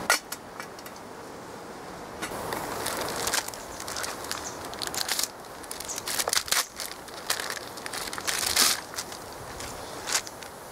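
Crinkling and crackling of a foil ration-pack pouch being handled and opened, in irregular rustles with one louder rustle about eight and a half seconds in.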